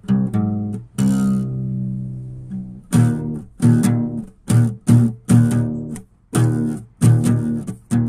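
Background music of plucked guitar with bass: a steady run of picked notes and chords, with one longer held chord about a second in.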